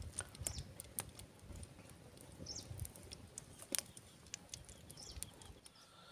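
Faint, irregular crackling and ticking from the wood cooking fire under an aluminium kadai of heating oil. There is a sharper tick at the very start and another a little before four seconds in.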